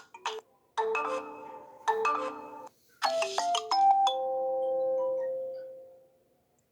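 A stock Android 8.1 ringtone-style melody playing on a Multilaser E phone: three short chiming phrases of a few notes each, then a last phrase that settles on one long held note and fades out.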